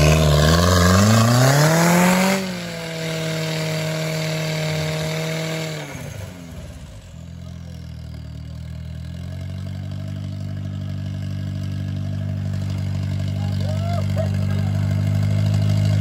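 Off-road vehicle engine revving hard for about two seconds, then dropping back and running steadily; a lower, even engine note takes over and grows louder toward the end.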